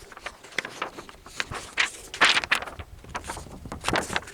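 Footsteps: an irregular run of short steps, the loudest a little past two seconds in.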